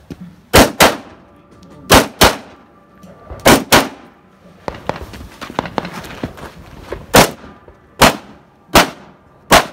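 AK rifle fired in a stage of a practical shooting match: three quick double-taps, then, after a short pause, four single shots about a second apart.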